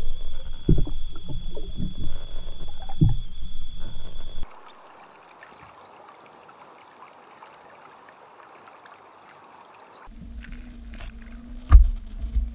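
Muffled underwater sound from a submerged camera: low thumps and water rumble with a faint steady high tone. A few seconds in it drops to a quiet hiss with a few faint high chirps. About ten seconds in the underwater rumble returns with a low hum, and a single loud thud comes near the end.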